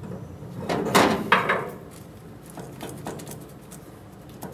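Steel spring plate being worked by hand on the splined end of a VW Karmann Ghia rear torsion bar: a cluster of metal clunks and scraping about a second in, then a few lighter clicks.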